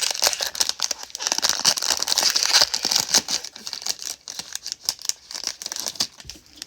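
Crinkling and tearing of a foil trading-card pack wrapper as a 2020 Panini Prizm football pack is ripped open and the cards handled. It is a busy crackle for about six seconds, then it dies down.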